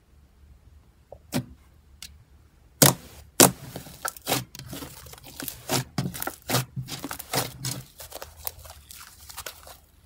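Thick blue slime being pressed and squeezed by hand, giving sharp pops and crackles. Two loud pops come about three seconds in, then a run of quicker pops, and it goes quieter near the end as the slime is stretched.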